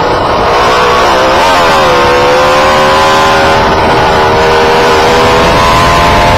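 Radio-controlled car's motor running, heard close from the car's onboard camera: a steady whine whose pitch dips about a second and a half in and then holds, over a rough low rumble.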